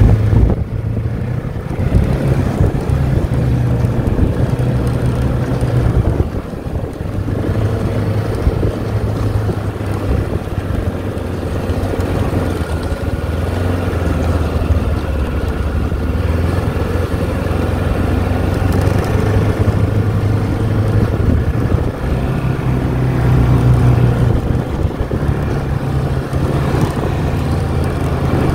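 Ski-Doo snowmobile engine running steadily under way, heard from the rider's seat, easing off briefly about six seconds in.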